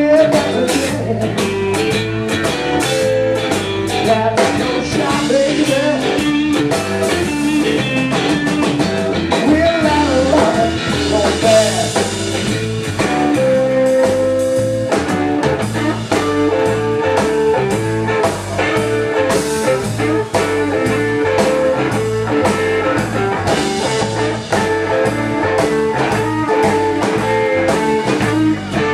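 Live blues-rock band playing: electric guitar, electric bass and drum kit.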